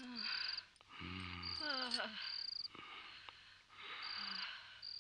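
Crickets chirping in short pulsing trills, about one every second. About a second in, a person's low voice briefly sounds, rising in pitch.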